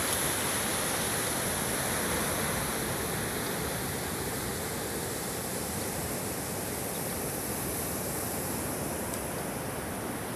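Ocean surf and wind making a steady, even rushing noise, with no distinct breaks or calls standing out.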